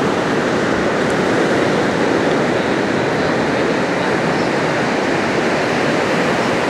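Ocean surf breaking and washing in, a steady, even wash of whitewater noise.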